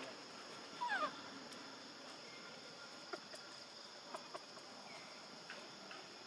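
A baby long-tailed macaque cries for its mother with one short, falling squeal about a second in and a fainter short call near the end. A steady high hiss and a few light clicks sit underneath.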